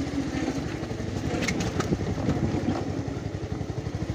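Motorcycle engine running at low speed while the bike is ridden over a rough dirt track, with a few sharp clicks about a second and a half in.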